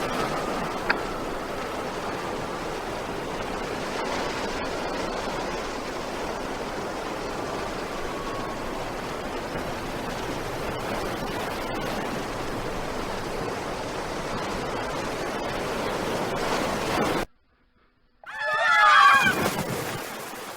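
Steady rushing of strong wind and water. It cuts off abruptly about three-quarters of the way through, and after a second of silence comes a loud, wavering vocal sound lasting about two seconds.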